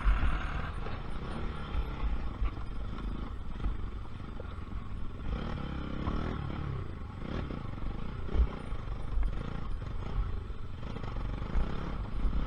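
Motorcycle engine running as it is ridden along a rough off-road dirt track, with a steady uneven low rumble.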